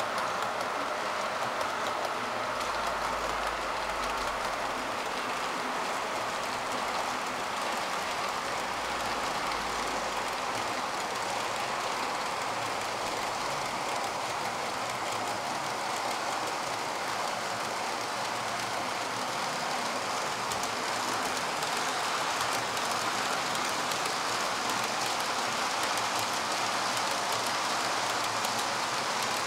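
Model trains running along the layout's track, heard close: a steady rolling noise of wheels on rail that grows a little louder in the last third.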